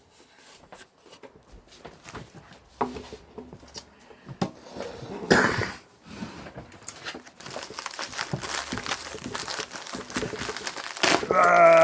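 Shipping package wrapping crinkling and rustling as it is handled and pulled at to open it, with scattered clicks, a louder rustle about five seconds in and steadier crinkling from about seven seconds on.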